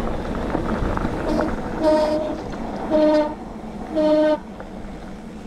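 Squeaky rear disc brake on a Calibre Triple B mountain bike squealing three times in short, horn-like blasts, each about half a second long, as the brake is applied, used in place of a bell. The owner expects new disc rotors to cure the squeal. Tyres rolling on the dirt trail and wind noise run underneath.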